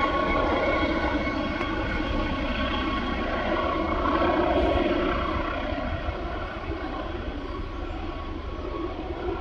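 McDonnell Douglas MD 900 Explorer helicopter in flight, its twin Pratt & Whitney PW207E turboshafts giving a steady turbine whine over the rotor rumble. It grows slightly louder near the middle, then fades as it flies away.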